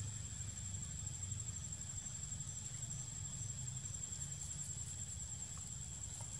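Steady high-pitched insect buzz, with faint short chirps about two a second through the middle, over a low rumble.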